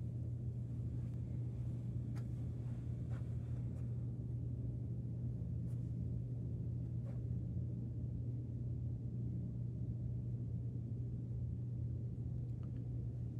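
Steady low electrical-sounding hum with a few faint ticks: background room tone.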